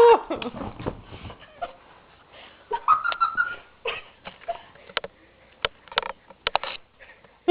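Scattered short clicks and breathy, sniffing sounds from people between goofy vocal noises, with a brief high squeaky voice sound about three seconds in.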